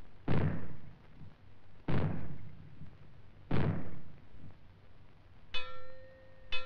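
The British civil-defence fallout warning: three explosive bangs about a second and a half apart, then a metal gong struck twice, ringing with a steady tone. It signals that radioactive fallout is expected and people must take cover.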